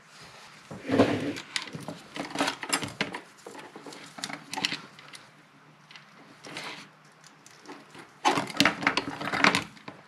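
Bench handling noise as a circuit board and component-tester leads are moved about on a cutting mat: a run of small clicks, knocks and rustles, busiest about a second in and again near the end.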